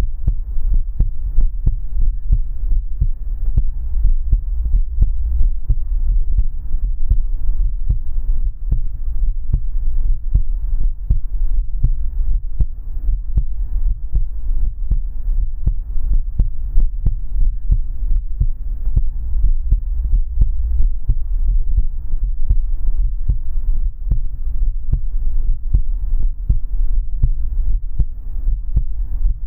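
A human heartbeat heard up close: a continuous run of low, muffled thumps over a steady low hum.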